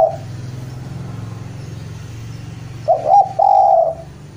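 Spotted dove (Javanese derkuku) cooing. The tail of one call ends right at the start, and about three seconds in comes one full phrase: two short notes, then a longer held coo. A low steady hum runs underneath.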